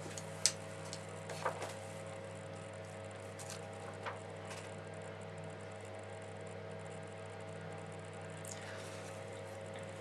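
Steady low electrical hum, with a few faint clicks in the first half.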